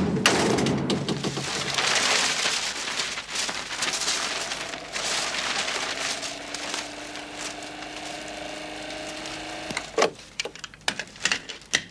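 A heavy thud as a bundle of papers lands, then a dense rush of loose paper sheets tumbling and scattering for several seconds. From about six seconds in a held chord of steady tones sounds, and a few sharp knocks come near the end.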